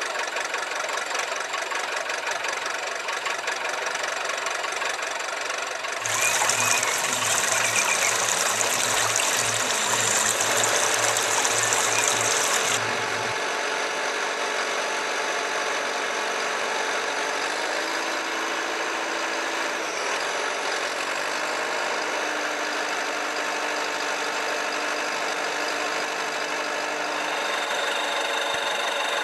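Engine running steadily. A louder, hissier layer comes in suddenly about six seconds in and cuts off abruptly about thirteen seconds in.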